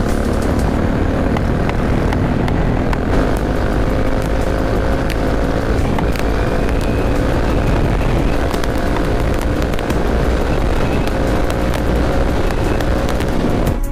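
Bajaj Dominar 400's single-cylinder engine running steadily at cruising speed, mixed with wind rushing over the on-bike microphone.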